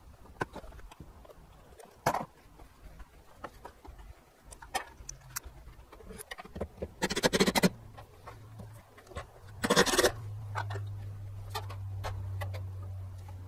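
Metal infrared heater housing being handled against its ceiling mounting brackets: scattered clicks and knocks, with two longer scraping noises about 7 and 10 seconds in. A low steady hum sets in about 8 seconds in.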